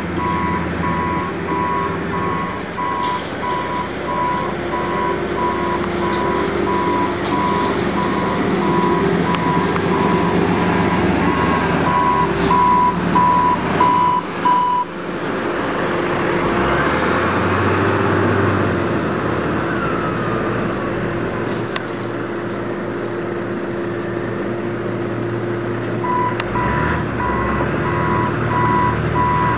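A vehicle's reversing alarm beeps about twice a second over its running engine. The beeping stops a little before halfway while the engine runs on, then starts again near the end.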